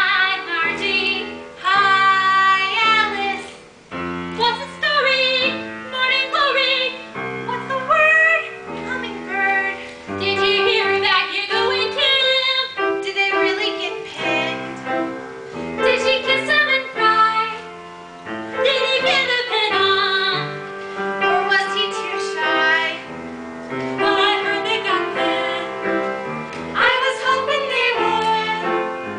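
Young female voices singing a show tune over piano accompaniment, phrase after phrase with short breaks between them.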